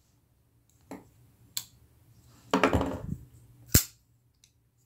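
Kizer Lan folding knife being flicked open and shut by hand: a few light clicks of the blade and pivot, then a sharp snap of the blade near the end.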